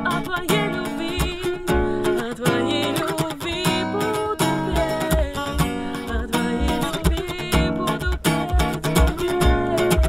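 Acoustic guitar strummed in a steady rhythm, with a woman singing over it.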